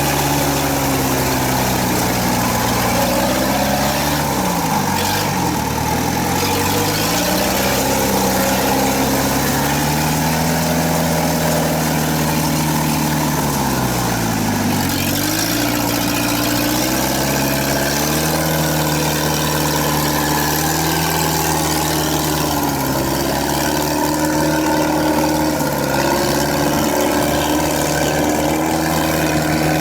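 Kubota DC70 combine harvester's diesel engine running steadily, its speed dropping sharply and recovering twice, about five seconds in and again about fifteen seconds in.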